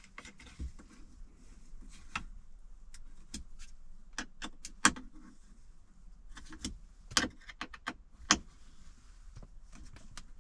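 Small clicks and taps from a T-handle hex key turning a screw in a 3D-printed dashboard phone-mount post, tightening the ball joint. A few sharper clicks stand out about five, seven and eight seconds in.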